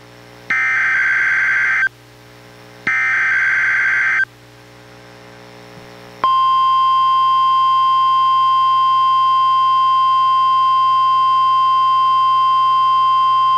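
NOAA Weather Radio alert signals for a required weekly test. First come two short buzzy data bursts of the digital SAME header, about a second apart. After a pause of about two seconds, the steady, high-pitched warning alarm tone starts and holds.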